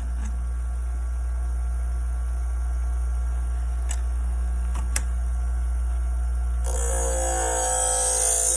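Electric sharpening-wheel machine running with a steady low hum, with two light clicks about four and five seconds in. Near the end a louder hissing, ringing sound sets in.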